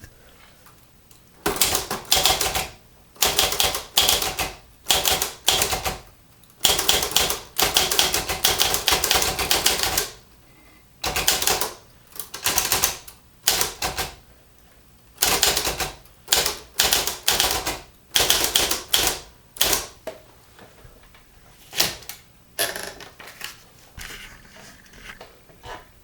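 Manual typewriter being typed on: quick clattering keystrokes in bursts of several strokes, separated by short pauses, thinning to a few scattered strokes over the last few seconds.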